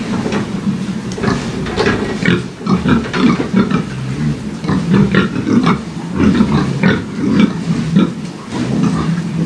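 Several pigs grunting close by, a continuous overlapping chorus of low grunts.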